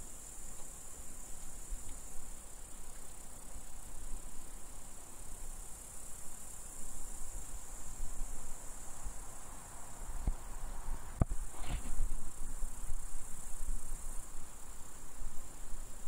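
Insects chirring: a steady, unbroken high-pitched drone in a summer field. Underneath is a low, fluctuating rumble, and a single sharp click comes about eleven seconds in.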